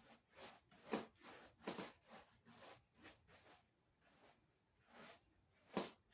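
Glaze being wiped onto a surface by hand: about six short rubbing swipes at irregular intervals, the loudest about a second in and near the end.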